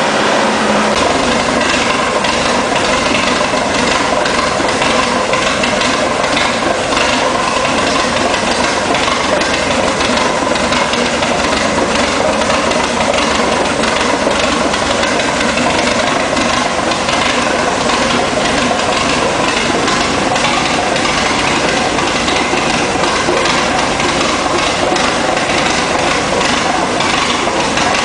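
Hino K13C turbocharged inline-six, converted from diesel to run on CNG with spark ignition, running steadily.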